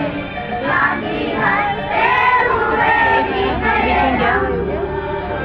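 A group of children singing a prayer together, with held, sliding notes.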